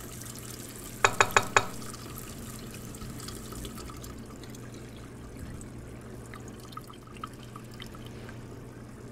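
Tap water running steadily into a sieve of decapsulated brine shrimp cysts, rinsing the bleach off them. Four quick, sharp knocks about a second in.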